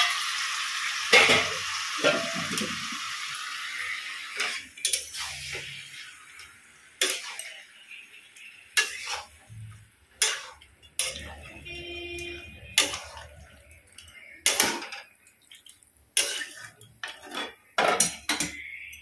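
Chicken in masala sizzling in an iron kadai while being stirred. The sizzle dies away after about five seconds, and from then on the spatula scrapes and knocks against the pan a dozen or so times, irregularly.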